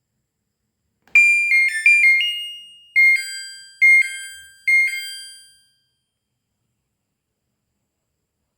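Samsung washing machine's control-panel beeper: a click, then a short electronic chime melody followed by three repeated two-note beeps. The machine has a newly fitted control module that keeps throwing error IE, the water-inlet fault.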